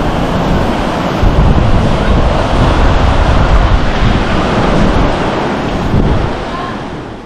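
Sea surf washing on the beach, with heavy wind buffeting the microphone; it fades out near the end.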